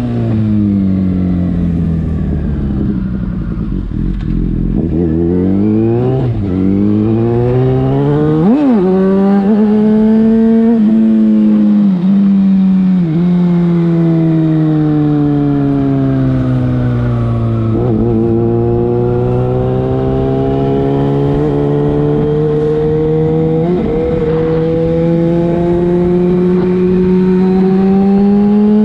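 Yamaha FZ6's inline-four engine through a LeoVince exhaust, riding: the pitch falls as it slows for the first few seconds, then rises through several quick gear changes, eases off again, and climbs steadily near the end.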